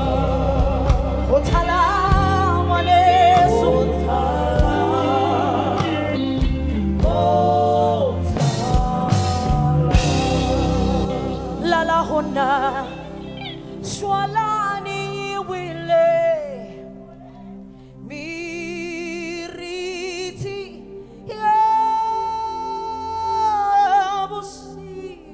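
Live gospel music: a band with bass and drums under singing, then about eleven seconds in the band drops back and a solo voice sings long, wavering runs over a sparse backing.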